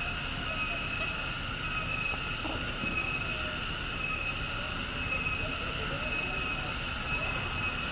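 Cicadas singing in one steady, unbroken shrill drone.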